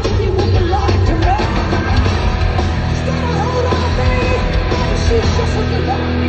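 Heavy metal band playing live and loud, heard from among the crowd in a large hall, with a voice singing over the heavy, distorted band.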